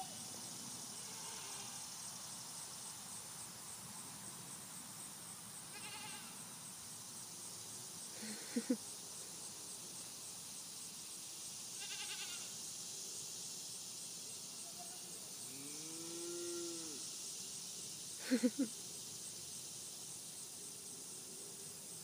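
Goats bleating now and then, about half a dozen separate calls. The loudest are short double calls about 8 and 18 seconds in, and one is a longer, lower call about 16 seconds in.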